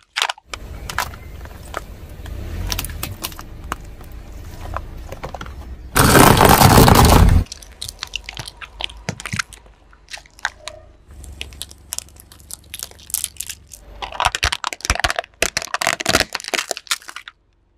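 Car tyre rolling over and crushing plastic cups, small plastic buckets of water beads and plastic toy cars: repeated cracking and crunching of plastic over a low rumble. About six seconds in comes a loud, noisy burst lasting about a second and a half.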